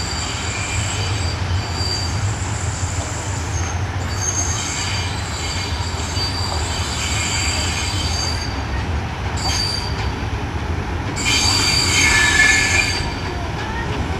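Class 52 steam locomotive rolling slowly tender-first over yard track, its wheels squealing on and off in high shrill tones over a steady low rumble. The squeal is loudest for about two seconds, starting around eleven seconds in.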